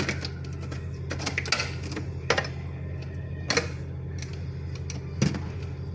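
Old refrigerator's compressor humming steadily, with irregular clicks and rattles over the hum.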